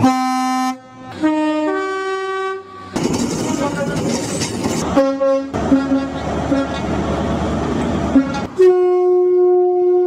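HST (Class 43 power car) two-tone horns in several edited clips: a short blast cut off, then a two-tone sounding low then high. Then the rumble of a train passing with a couple of short toots, and near the end a long, steady single-note blast.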